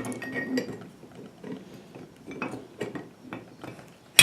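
Metal parts of a locking hub clicking and clinking as the locker body and hub are handled and fitted together, with a sharp, loud click near the end.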